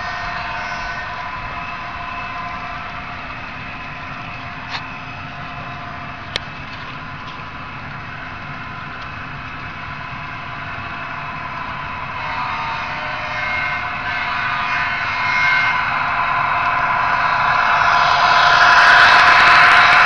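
Model train of Santa Fe diesel locomotives hauling double-stack container cars, running with a steady hum and a rising rattle of wheels on the track as it approaches, loudest near the end as it passes close by. Two sharp clicks sound about five and six and a half seconds in.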